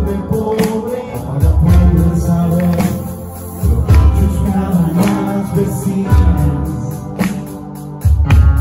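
Live band playing a song with drums, bass, electric guitar and keyboards, the drum hits and bass notes strong and regular.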